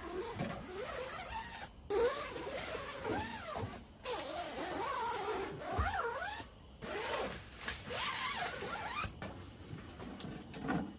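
Tent window zippers being drawn shut: four long zips of about two seconds each, with short pauses between them.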